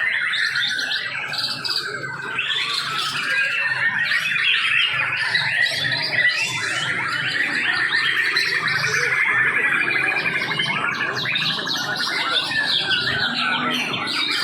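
Many caged greater green leafbirds (cucak hijau) singing at once in a songbird contest: a dense, continuous jumble of overlapping chirps, whistles and fast trills.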